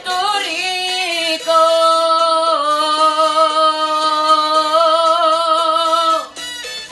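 A teenage boy singing, holding the last word of a line as one long note with vibrato over instrumental accompaniment; the note ends about six seconds in and the accompaniment carries on.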